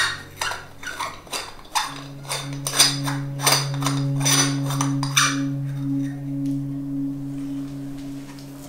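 Light bulb being screwed into a ceiling socket: a run of sharp squeaks and clicks as the glass bulb and metal base turn in the socket, stopping about five seconds in. A low, steady music drone sounds underneath.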